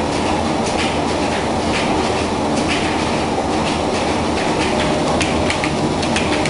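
Steam-driven mill machinery running: a loud, continuous mechanical clatter with many irregular sharp clicks.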